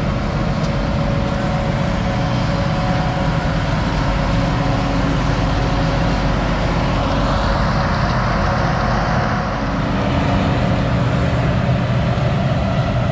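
A heavy vehicle engine running steadily, with a low drone and several steady tones. A swell of rushing noise rises and fades about seven to nine seconds in.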